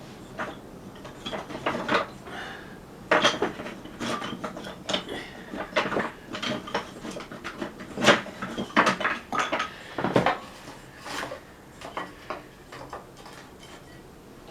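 Irregular clanks and knocks of metal and wood as a cold wood stove and its firewood are handled to relight the fire, which has gone out. The loudest knocks come about three, eight and ten seconds in, and the clatter thins out near the end.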